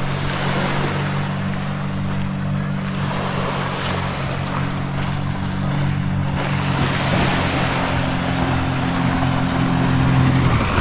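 Motorboat engine running steadily as the boat comes in toward the shore, cutting off abruptly near the end, over small waves washing on the shore and wind on the microphone.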